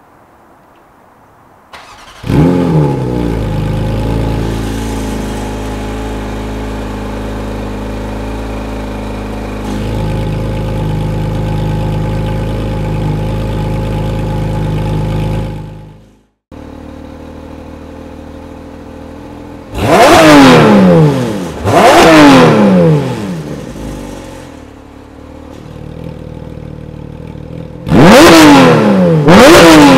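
Porsche 718 GT4 RS's 4.0-litre flat-six, with Dundon street headers and catted wave pipes, starting up: it flares and settles into a steady idle that breaks off abruptly about 16 seconds in. After a quieter idle come two quick revs about 20 and 22 seconds in, and two more near the end with the exhaust valves open.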